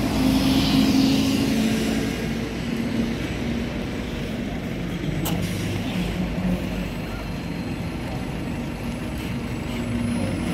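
Double-decker London buses running close by: the engine of one pulling past fades over the first couple of seconds with road noise, and another bus's engine hum rises near the end as it approaches. A single sharp click about five seconds in.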